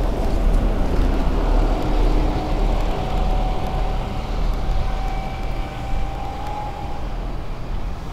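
Wind rumbling on the microphone and bicycle tyres running over a paved cycle path, with road traffic passing alongside. A faint steady whine sounds for a few seconds in the middle.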